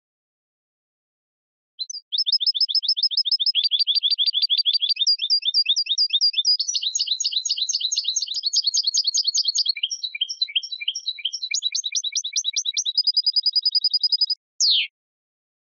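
European goldfinch singing: one long unbroken song of rapid, high twittering trills at about ten notes a second. It starts about two seconds in and ends with a short falling note.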